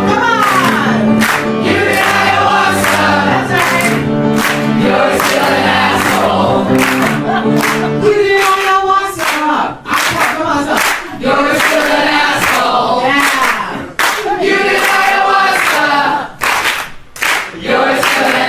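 A woman singing a comic song live into a microphone, over sustained backing chords. About eight seconds in the chords drop out and the singing carries on with the voice alone.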